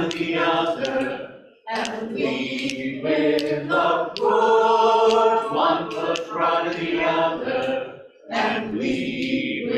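Small mixed church choir singing in harmony, holding long chords, with two brief breaks about one and a half seconds and eight seconds in.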